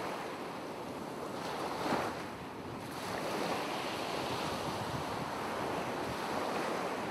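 Ocean waves washing, a steady rush of surf that swells briefly about two seconds in.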